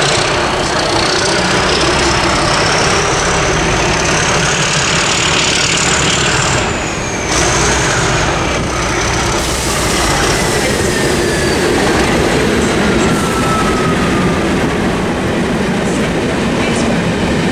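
A train running along the rails close by, with a steady loud rumble and thin high wheel squeals that glide up and then down in pitch.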